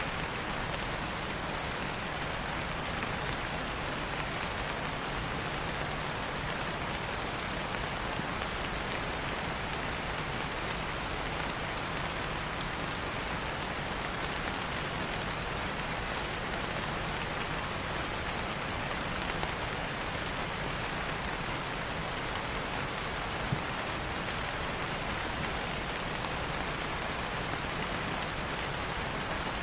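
Steady rain falling on a surface, an even rushing patter with no thunder.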